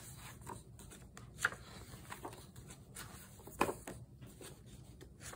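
Faint rustling of paper pages being handled and turned in an art book, with small taps and two sharper ones, about a second and a half in and again past three and a half seconds.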